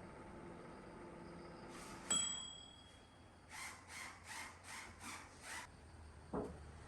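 Sharp microwave oven running with a steady hum that stops about two seconds in with a single ringing ding, the end of the heating cycle. Six short sounds follow in quick succession, then a single thump near the end.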